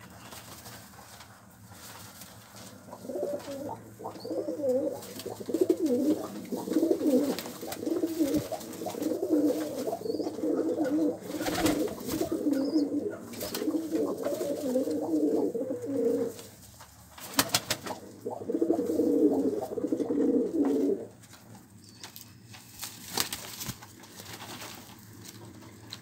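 Domestic pigeons cooing, several low warbling coos overlapping almost without pause, breaking off briefly past the middle and stopping a few seconds before the end. A few sharp clicks stand out among the coos.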